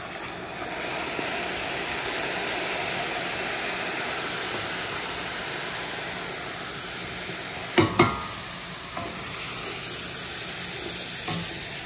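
Sofrito sizzling and frying hard in a wide pot while it is stirred, as white wine goes in to deglaze and boils off quickly. A sharp knock about eight seconds in, like a utensil striking the pot.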